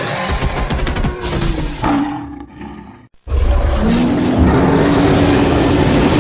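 Creature roar sound effects: a rough growling roar that fades out about three seconds in, a brief silence, then a second, louder roar that holds steady.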